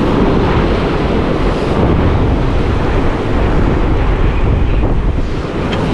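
Rough sea surf breaking and washing over shoreline rocks, with wind buffeting the microphone in a steady low rumble.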